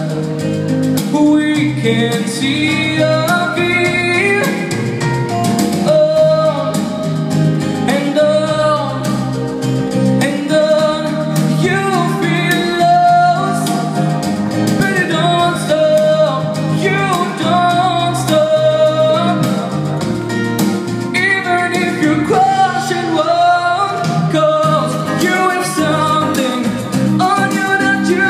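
A man singing live into a handheld microphone, his amplified voice carrying the melody over a steady instrumental accompaniment.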